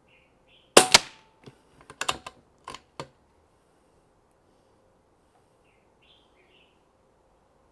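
A shrouded Daystate Wolverine PCP air rifle fires a single shot, a sharp crack about a second in with a second crack a split second after it. A quick run of smaller clicks follows as the action is worked to load the next pellet. Birds chirp faintly at the start and near the end.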